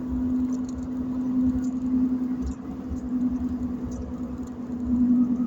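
Steady hum of a car idling, heard from inside the cabin, with faint scattered chewing clicks.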